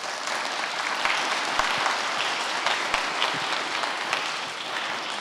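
Audience applauding: many people clapping at once, swelling in at the start and easing slightly toward the end.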